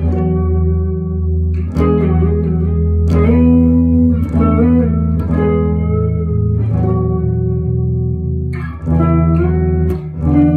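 Electric guitar played unaccompanied: chords struck every second or two and left to ring, over a steady low note.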